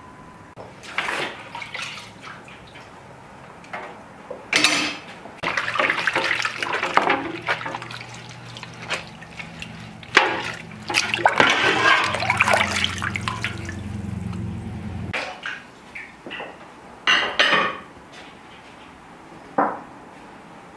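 Dishes washed by hand in a metal dishpan: water sloshing and splashing as a cloth scrubs an enamelware plate, with occasional knocks of dishware, in irregular bursts that die away about three seconds before the end.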